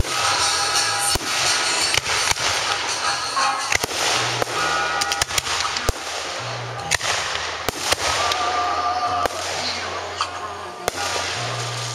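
Aerial fireworks shells bursting overhead: sharp bangs and crackling, with a quick run of several reports about five seconds in. Music plays underneath.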